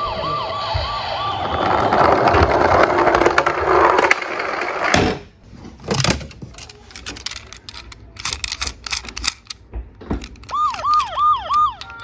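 Electronic siren of battery-powered toy police cars playing through their small speakers: a few quick whoops at the start, then a loud rushing noise for a few seconds. Then plastic toy vehicles clatter against each other in a cardboard box, and near the end another toy gives four arching siren whoops.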